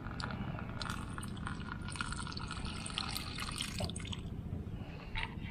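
Water pouring in a thin stream from a plastic jug into a small plastic lid, trickling and splashing; the stream weakens about four seconds in.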